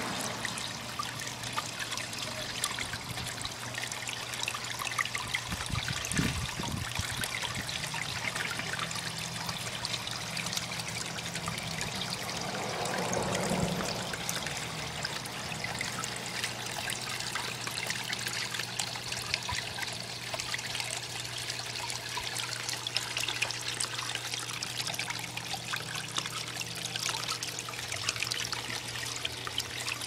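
Water from a DIY rock waterfall splashing and trickling steadily into a fish tank, with a low steady hum underneath. A single thump about six seconds in.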